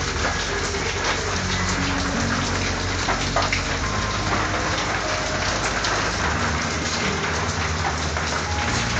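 Steady rain falling on a corrugated tin roof, an even, unbroken hiss of drops.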